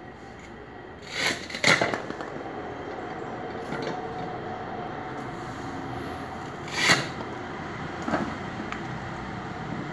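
Hand-lever sugarcane sett cutter chopping cane stalks into seed pieces, each stroke a sharp chop. Two chops come close together about a second in, the loudest near seven seconds, and a lighter one just after it.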